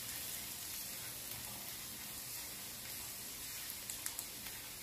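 Chopped onion, garlic and green chillies with spice powders sizzling steadily in coconut oil in a cast iron pan while a wooden spatula stirs them, sautéing until the raw smell of the powders is gone. A few light clicks of the spatula against the pan come about four seconds in.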